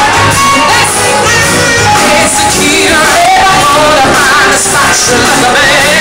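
Live Broadway show tune with a live band: a woman sings the lead into a microphone with the ensemble singing along, amplified through a PA.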